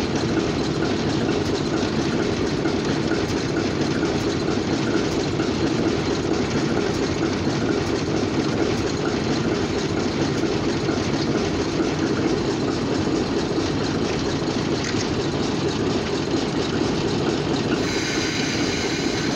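An engine idling steadily, a constant rumble with no rhythm or change in speed; the sound shifts near the end.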